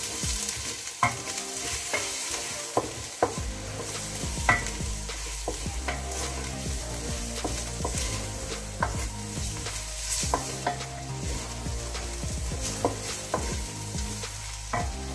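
Chopped shallots, garlic and spice paste sizzling in oil in a stainless steel pot as they are sautéed. A wooden spoon stirs them, scraping the pot and knocking against it now and then.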